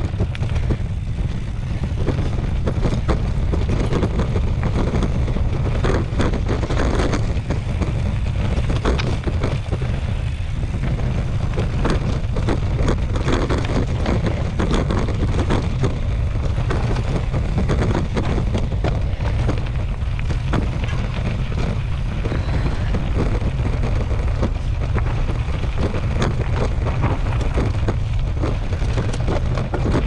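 Mountain bike riding down rocky dirt singletrack, heard from a camera on the bike or rider: a steady, deep wind rumble on the microphone under a constant clatter of tyres on gravel and the bike rattling over bumps.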